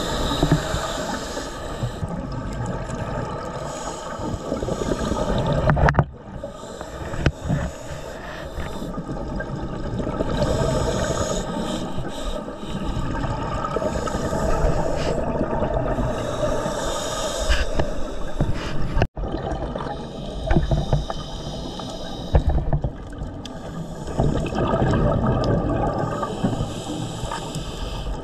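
Scuba breathing heard underwater: the hiss of a regulator and the gurgle of exhaled bubbles, rising and falling in slow cycles every few seconds.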